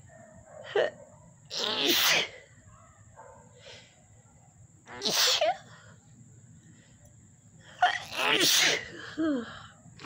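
A woman sneezing three times in a row, about three seconds apart, with short sharp breaths before the first and last sneeze. The sneezes are set off by dust irritating her nose.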